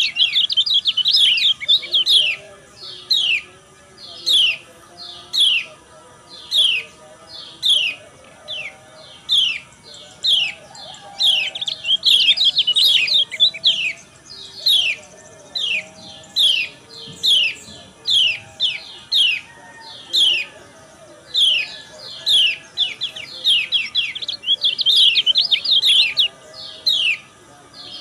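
Lemon-bellied white-eye (kecial kuning) female calling: short, high chirps that slide downward, about one a second. They break into quick rapid runs of chirps (the 'ngejos' calls) three times.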